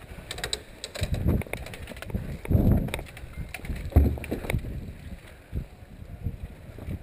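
Wind and movement rumbling on a body-worn camera's microphone, in uneven swells, with scattered clicks and knocks; the loudest knock comes about four seconds in.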